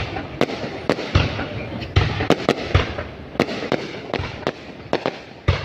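Fireworks going off: a rapid, irregular series of sharp bangs, roughly two or three a second, over a continuous crackling rumble.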